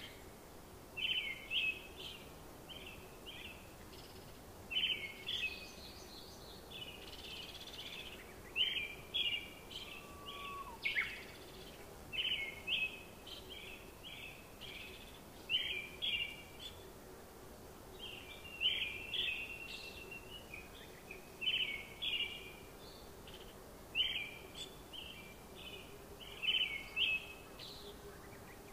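Bird chirping in short bursts of calls that repeat every second or two, over a faint steady hum.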